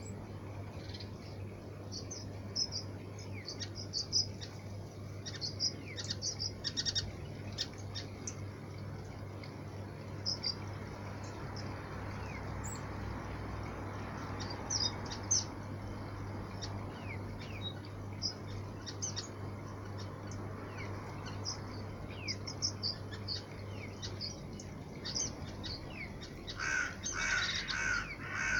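Small flock of waxbills giving short, high, thin chirping calls, scattered and overlapping, with a louder run of repeated calls near the end. A steady low hum runs beneath.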